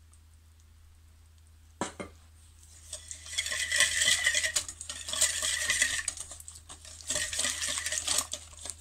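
Wire balloon whisk beating flour into a thin yeast-and-water mixture in a glass bowl, its wires rattling and scraping fast against the glass. A brief knock comes about two seconds in, and the whisking starts about a second later.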